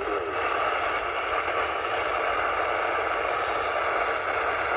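Steady radio static: an even hiss from a radio receiver tuned to a weak signal.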